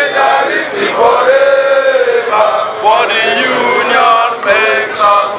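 Men chanting loudly in a crowd, one man's voice leading, with long held notes that rise and fall.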